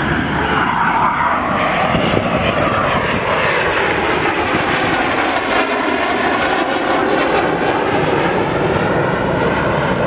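BAE Hawk T2 jet trainers flying past with their Rolls-Royce Adour turbofans. The jet noise falls in pitch over the first few seconds as they pass, then carries on loud and steady.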